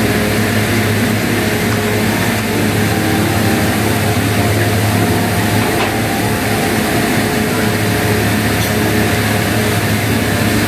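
Electric fan running with a steady hum and whoosh of moving air. A spoon ticks faintly against a drinking glass once, about six seconds in, while the drink is stirred.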